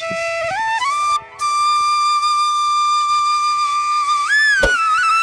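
Background music: a flute-like melody that steps up in pitch, holds one long steady note, then bends up and back near the end, with a single click just before the end.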